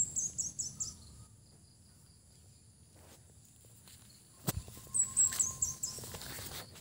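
A small songbird singing a short high, thin phrase twice: a held note followed by a quick run of four or five falling notes, once at the start and again about five seconds in. A single sharp knock comes just before the second phrase.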